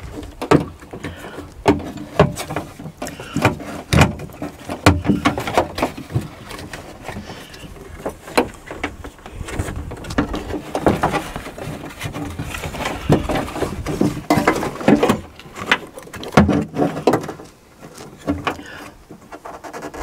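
Irregular clicks, knocks and rattles of a car door's lock actuator and its metal lock rod being worked loose by hand inside the stripped door shell.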